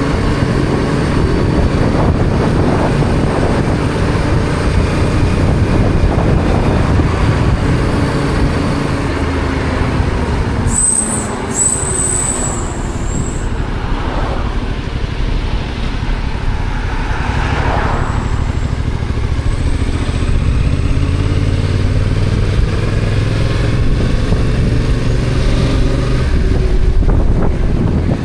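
Yamaha XSR700's stock parallel-twin engine running under way, its note sliding down and back up as the bike slows and speeds up. A short high-pitched squeal cuts in twice, about 11 and 12 seconds in.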